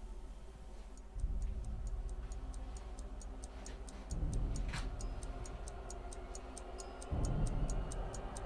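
Rapid, even ticking, about four ticks a second, starting about a second in, over a deep low drone that swells up three times, about three seconds apart.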